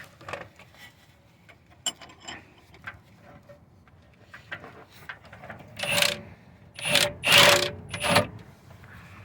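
Metal parts scraping and rubbing against each other, with small clicks and then three louder rasping scrapes in the second half.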